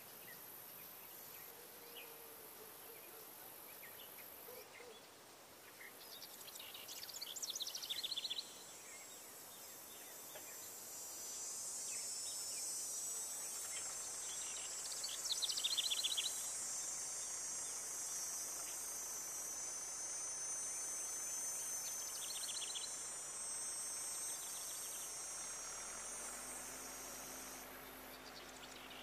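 Outdoor nature ambience: a high, steady insect trill comes in about eleven seconds in and stops near the end, and a bird gives short calls three times.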